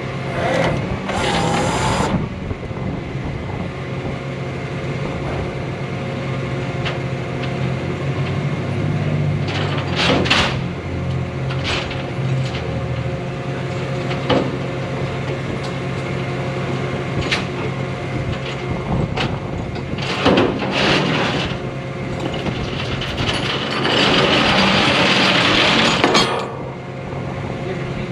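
Rollback tow truck's engine running steadily, with a few short knocks and a louder hissing rush lasting about two seconds near the end.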